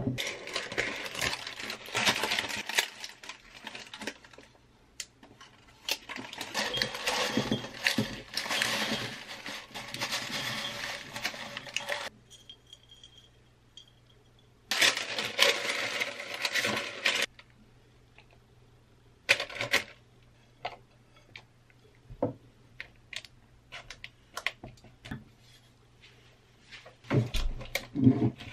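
Dry baked granola rustling and rattling as it is handled in parchment paper and a glass jar, in several bursts of a few seconds each, followed by scattered clinks and knocks.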